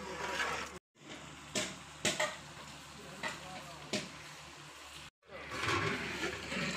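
Chicken pieces sizzling in spiced oil and sauce in a large aluminium cooking pot, stirred with a long metal spatula that clinks against the pot a few times. The sound breaks off briefly twice, and grows louder and busier near the end.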